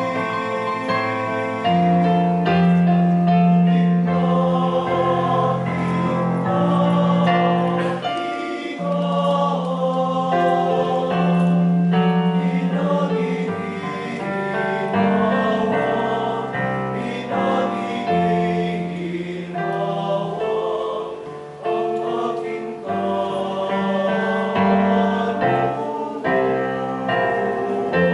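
Choir singing a hymn over instrumental accompaniment, in long held notes that change every second or two.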